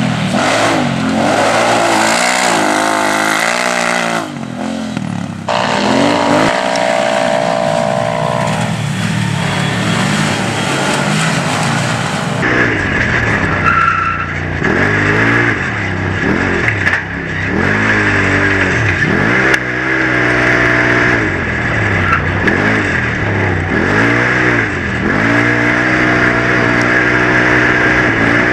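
UTV race engines revving hard, the pitch rising and falling again and again with the throttle. The sound jumps between trackside and onboard, and from about twelve seconds in the engine sweeps are joined by a steady high whine.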